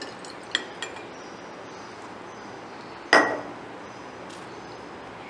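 Laboratory glassware clinking: two light clicks, then about three seconds in a louder single clink with a short ring, as a glass graduated cylinder is set down on the bench.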